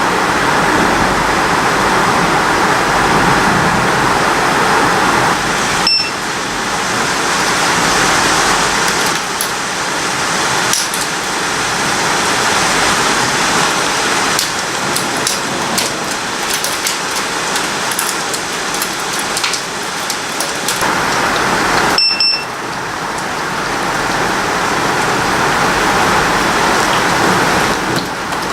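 Heavy rain pouring steadily in a thunderstorm, with scattered sharp ticks of drops striking nearby. Two short beeps sound, one about six seconds in and another some sixteen seconds later.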